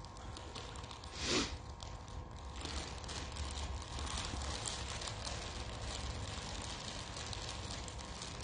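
Close crinkling and crackling of a candy wrapper being handled, with many small crackles, and a short, louder rustle about a second in.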